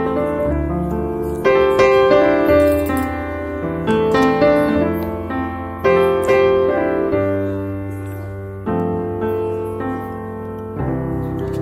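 Background piano music: notes struck and fading over low held bass notes.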